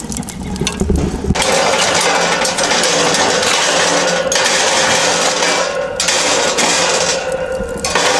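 Metal grill tool raking and scraping burning charcoal across a charcoal grill, with the coals crackling and clinking. It starts about a second in and goes in a few strokes, with brief pauses between them.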